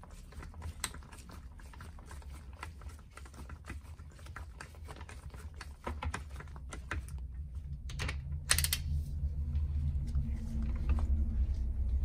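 Socket ratchet clicking in quick runs as a bolt on the side of an ATV engine's cylinder head is screwed in, with a louder clatter about eight and a half seconds in.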